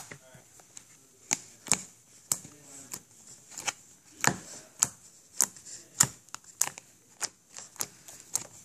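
Fingers poking and pressing into soft, fluffy slime in a plastic tub, giving sharp, irregular clicks and pops about once or twice a second as trapped air bursts.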